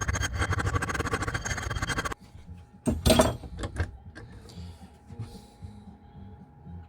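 Rapid, even metal-on-metal working of a thin copper piece held in a vise, stopping abruptly about two seconds in. About a second later comes a short loud scrape or rustle and a few light clicks.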